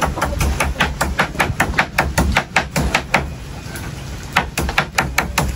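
A knife chopping rapidly on a cutting board, even strikes about six a second, with a pause of about a second a little past the middle before the chopping resumes.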